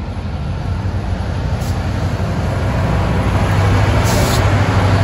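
GO Transit MP40PH-3C diesel locomotive 624 approaching and passing, its engine droning steadily and growing louder as it nears. A short hiss comes about four seconds in.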